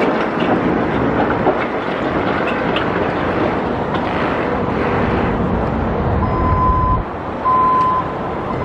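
Loud, steady rumble of heavy vehicle traffic. About six seconds in, a high steady beep starts repeating about once a second, and a deep rumble swells just before seven seconds.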